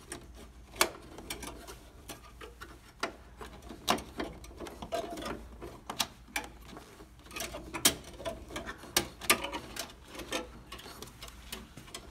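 Irregular clicks and light knocks of a battery cable and the MIG welding wire tied to it being pulled and fed through the gaps in a van's engine bay, tapping and rubbing against the panels. A few louder knocks come about a second in and twice more near the end.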